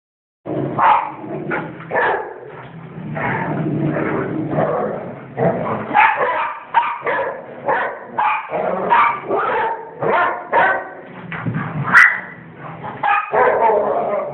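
Several dogs barking over one another in a dense, continuous run of barks, with one sharp click near the end.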